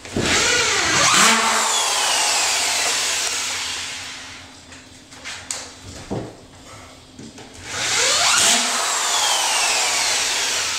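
Corded handheld drywall cutout tool (spiral saw) spinning up with a rising whine and cutting through drywall, a loud harsh hiss that runs about four seconds, stops, and starts again about three seconds later. A couple of short whirs and clicks come in the gap.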